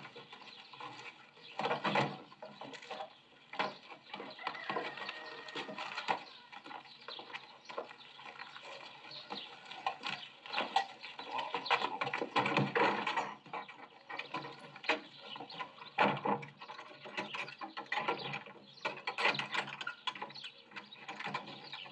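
Irregular clicking, rattling and scattered knocks of wooden and metal objects being handled, heard through a TV speaker. A louder knock comes about sixteen seconds in, as a hand works the iron latch of a plank door.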